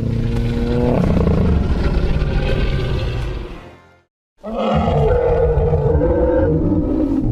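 Two long Triceratops calls, designed dinosaur sound effects: the first begins as a steady low pitched tone and turns rough before fading out, and after a brief silence about four seconds in a second, higher-pitched call starts.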